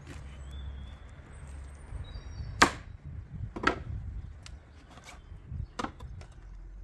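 A large kitchen knife chopping lamb leg meat on a thick wooden cutting board: a few sharp knocks of the blade striking the board, the loudest about two and a half seconds in.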